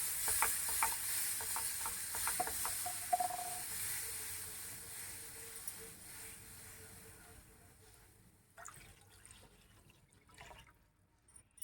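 Water poured into a hot pan of ghee-roasted wheat flour, grated coconut and almonds: a loud sizzling hiss that fades away over about eight seconds. A few sharp clinks come in the first three seconds, and a few faint knocks near the end.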